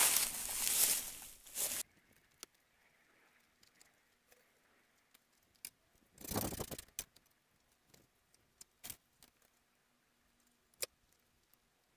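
Footsteps crunching and rustling through dry brush and twigs for the first couple of seconds, then near quiet with scattered small clicks and snaps. A short rustle of branches comes about six seconds in.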